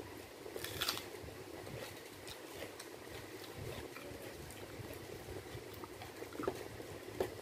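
Fingers mixing rice with curry gravy on a steel plate: soft wet squishing with small scattered ticks against the metal, a louder wet smear about a second in and two sharper ticks near the end, over a steady background hum.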